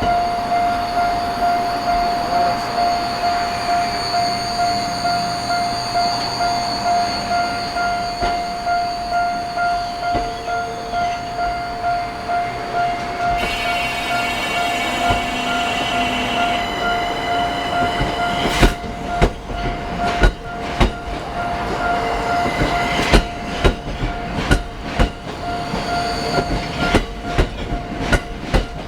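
Railway level-crossing alarm bell ringing with steady, rapid repeated dings. A Ginza Line 1000 series train passes: a high whine comes in about halfway through, then from about two-thirds of the way in its wheels clack sharply over the rail joints.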